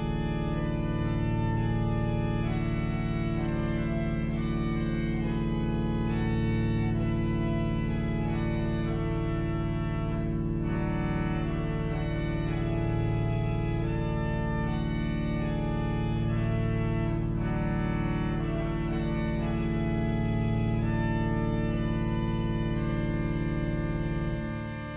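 Organ playing slow, sustained chords on the manuals over a steady pedal bass, the harmony shifting every few seconds. The sound dips briefly right at the end.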